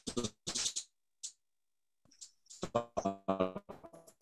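A man's voice breaking up into short, choppy fragments, with more than a second of dead silence in the middle: speech cutting out over a poor video-call connection.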